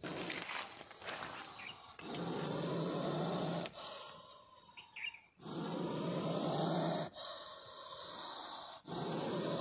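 Indian cobra hissing with its hood spread: three long hisses, each about a second and a half, a few seconds apart, its defensive warning at being disturbed.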